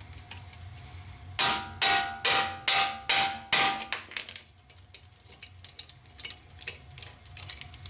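Five hammer blows on a Vessel 2500 impact driver, about two a second, each with a short metallic ring, as the driver is struck to break a stuck JIS brake rotor screw loose on a Honda. Faint clicks of the tool being handled follow.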